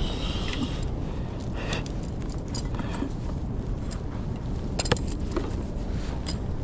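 Light clicks and scrapes of a fishing rod and reel being handled, with one sharper click about five seconds in, over a steady low rumble.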